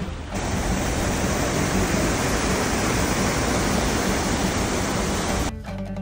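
Mountain stream rushing over rocks, a steady loud rush of water that sets in just after the start and cuts off abruptly about half a second before the end. Light guitar background music is heard at the start and returns when the water stops.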